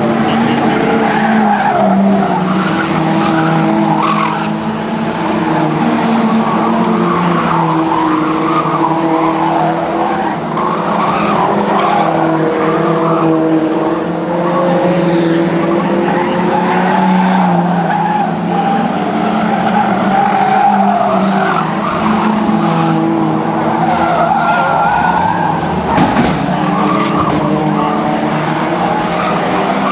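A pack of historic stock cars (old saloon cars) racing together on an oval, their engines running hard with pitches that keep shifting as cars rev and pass, over tyre skid noise. One sharp bang about 26 seconds in.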